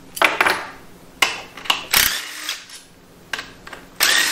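Cordless drill running in several short bursts as it backs bolts out of a TH350 automatic transmission's valve body.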